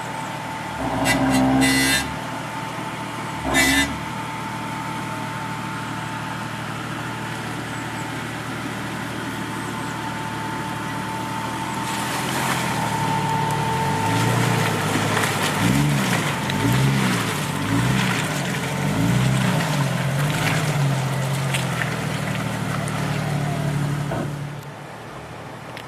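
Jeep engine running under load off-road, revved up and down about six times in quick succession about halfway through, as when working through mud or a creek crossing, then easing off near the end. Two short sharp sounds come in the first few seconds.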